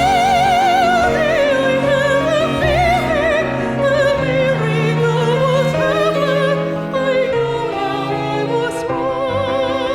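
Soprano holding a note with wide vibrato over piano, two violins and cello, the melody then moving on in long vibrato notes above sustained cello and piano notes.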